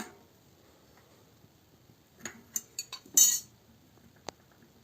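Open-end wrenches clinking against a bicycle front hub's cone and locknut as they are tightened against each other. A few metallic clicks come about two seconds in, then a louder clank, then a single sharp tick near the end.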